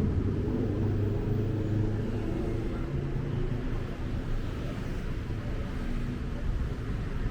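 City street traffic: motor vehicle engines running with a steady low hum, a little stronger in the first few seconds.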